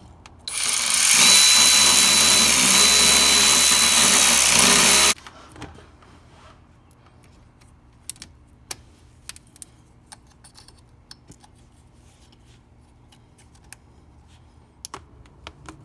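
Cordless electric ratchet running for about four and a half seconds, tightening a fastener during engine reassembly, with a thin whine through it, then cutting off suddenly. After it, light clicks and taps of hoses and connectors being fitted by hand.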